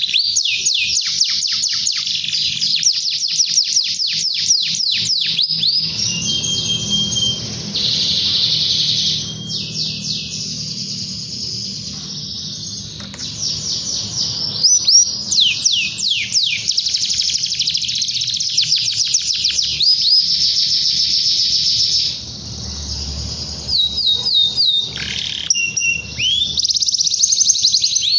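Male domestic canary in full song: long runs of very fast trilled notes and rolls, high-pitched, with short held tones and brief pauses between phrases. A rival-calling song of the kind kept to set other canaries singing.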